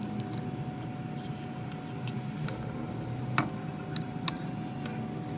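Light clicks and taps of small hand tools, with a few sharp ones, over a steady faint hum.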